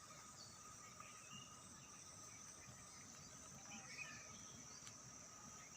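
Faint, steady trilling of an insect chorus, holding two unbroken high tones, with a few brief, faint bird chirps scattered through.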